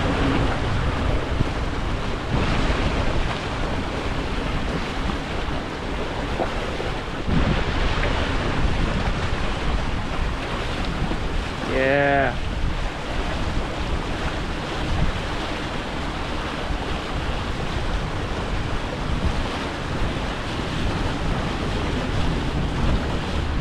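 Wind buffeting the microphone and water rushing past the hulls of a Hobie Getaway beach catamaran under sail, steady throughout. About twelve seconds in there is one short pitched call.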